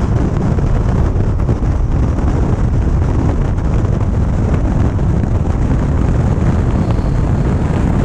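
Steady road, tyre and engine rumble inside the cab of a 2015 Ford F350 dually diesel pickup cruising at speed.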